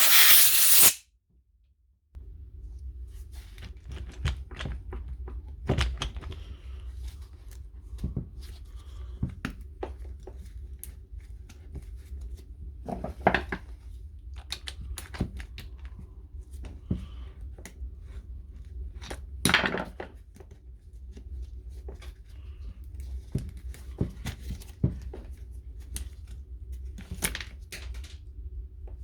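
A loud hiss lasting about a second at the start, then scattered clicks, taps and knocks of small parts of a brushed impact wrench being handled and pried apart on the bench, over a steady low hum.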